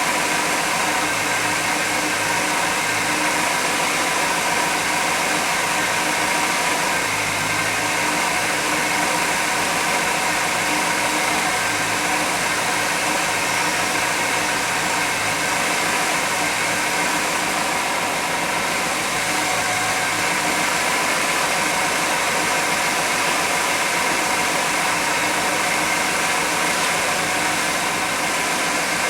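1991 GMC Jimmy engine running at a steady idle under a constant hiss, on a truck suspected of having a vacuum leak.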